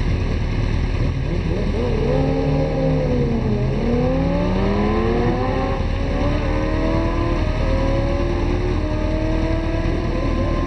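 Sport motorcycle launching down a drag strip and accelerating hard, its engine note climbing in pitch and dropping at each upshift, the first about four seconds in. A steady low rumble sits beneath it.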